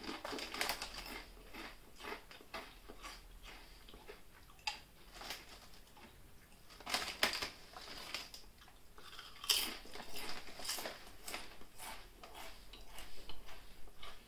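Close-up chewing of thin flat-cut potato chips: irregular crisp crunches in clusters. A foil chip bag crinkles as a hand reaches in.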